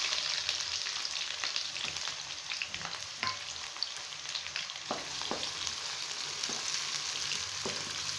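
Sliced onions sizzling in hot oil in a karahi, loudest as they go in at the start, then a steady sizzle with scattered pops and crackles. A wooden spatula starts stirring them near the end.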